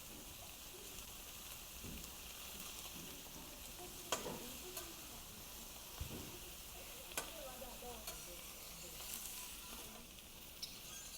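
Pork belly sizzling on a large iron griddle, a steady frying hiss, with a few sharp clicks of utensils stirring and turning on the hot plate.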